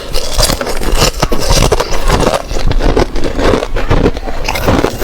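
Thin ice being bitten and chewed close to the microphone: a dense, continuous run of crunching and crackling.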